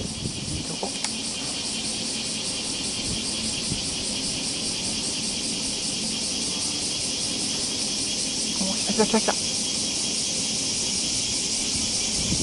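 Steady chorus of insects, a fast pulsing high buzz, with a short pitched call about nine seconds in.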